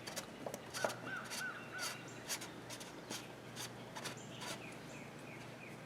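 Faint clicks and light taps of plastic being handled as an oil filter housing cap is threaded on by hand. Birds call over it: a run of four short chirps about a second in, and a few short falling notes later.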